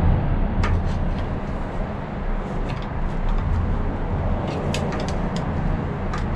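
Light metallic clicks and taps of a hand tool bending locking tabs against flywheel bolt heads, a dozen or so scattered through, over a steady low mechanical rumble that is the loudest sound.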